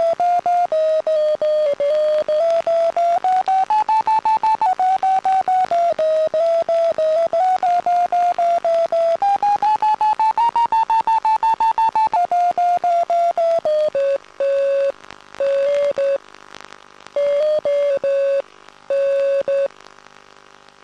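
Electronic audio variometer of an FPV glider beeping rapidly, about four beeps a second. Its pitch rises and falls with the glider's vertical speed. From about fourteen seconds in it slows to a few longer, lower beeps, then stops.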